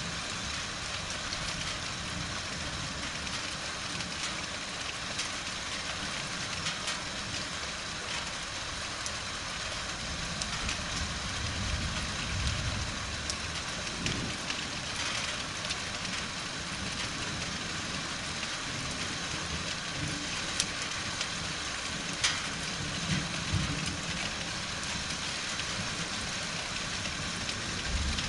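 Steady hiss of heavy rain falling, with a few sharper drop impacts standing out. Low, distant thunder rumbles swell up briefly about halfway through and again later.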